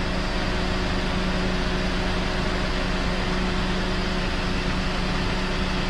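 Car air conditioning running steadily: an even rush of air from the blower fan with a constant low hum beneath it. The freshly recharged system is blowing air at about 5 °C.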